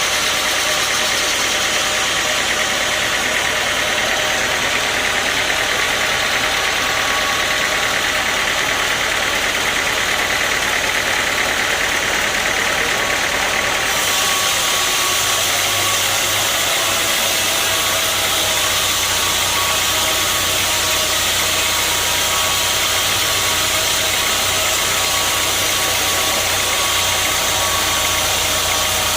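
Sawmill machinery running with a loud, steady mechanical drone; the tone changes abruptly about halfway through.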